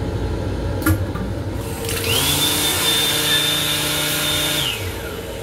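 Touchless faucet of a train lavatory's combined dryer/faucet/soap unit running. After a click about a second in, a motor whine rises, holds steady over the hiss of running water for nearly three seconds, then winds down. The low rumble of the moving train runs underneath.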